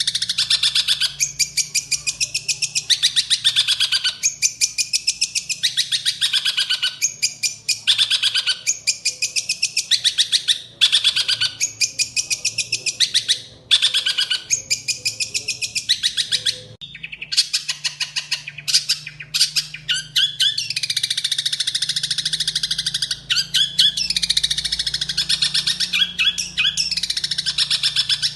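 A songbird singing a loud, fast chattering song of rapidly repeated high notes, in phrases of a second or two with brief pauses.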